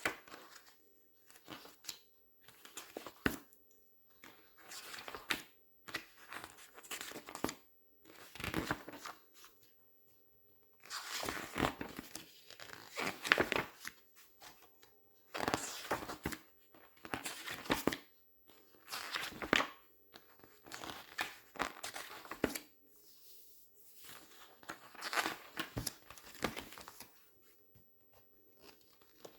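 Glossy paper pages being handled, turned and squeezed: a series of crisp crinkling rustles, one every second or two, with short pauses between.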